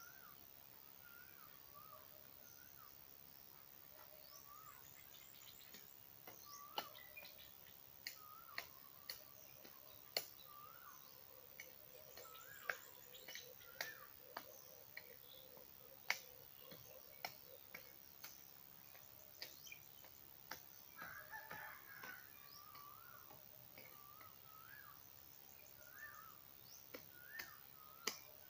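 Faint birdsong: a bird repeating short warbling notes every second or two, with a run of sharp clicks through the middle.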